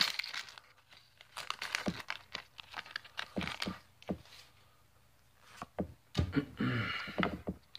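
Foil booster-pack wrapper being torn open and crinkled by hand: a run of sharp crackles and rustles, then a second burst near the end.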